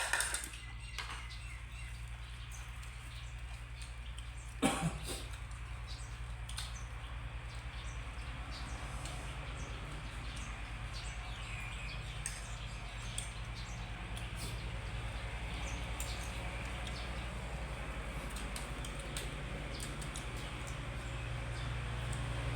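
Eating at a table: scattered small clicks and chewing noises, with two sharper knocks, one at the very start and one about five seconds in, over a steady low hum.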